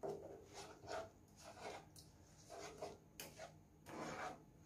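A spoon scraping and stirring through liquid caramel of brown sugar, syrup and melting butter in a nonstick frying pan, in a series of short strokes about two a second.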